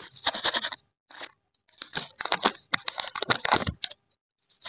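Printed plastic lollipop wrapper crinkling and tearing as it is peeled off by hand, in several runs of crackles with short pauses between them.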